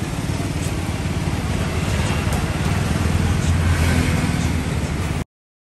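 Steady road-traffic noise with a low engine rumble from passing vehicles. It cuts off abruptly about five seconds in.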